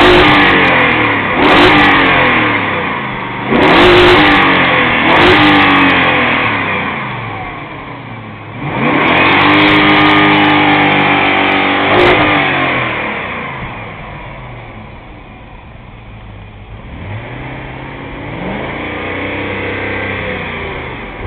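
BMW E39 540i's 4.4-litre V8 being revved: about four quick blips of the throttle, then held at high revs for about three seconds and let fall back to idle, with a smaller, slower rev near the end.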